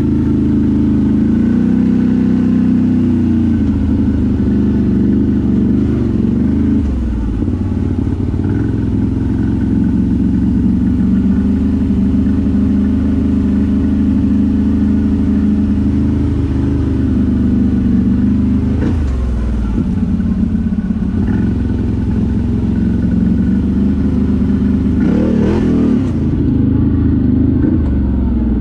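ATV engine running, its revs rising and falling several times with throttle, with a couple of brief knocks or jolts in the second half.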